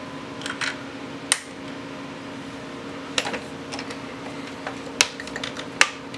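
Scattered sharp metal clicks and clinks from a single-stage reloading press as a primer is pressed back into a brass rifle case and the press handle is worked, over a steady background hum.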